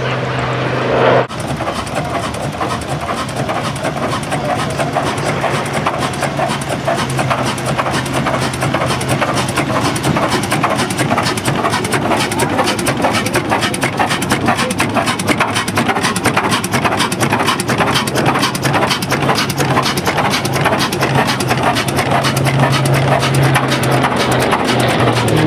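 An engine running steadily close by, with a fast, even stream of firing pulses over a low hum.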